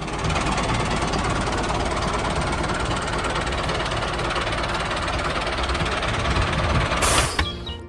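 Tractor engine running steadily, with a short burst of noise about seven seconds in.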